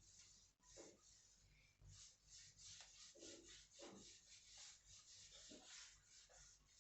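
Faint rubbing or scraping strokes, about three a second.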